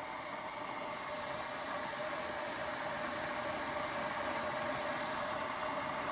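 Glass electric kettle heating water: a steady hiss with a faint hum, slowly getting louder as the water comes toward the boil.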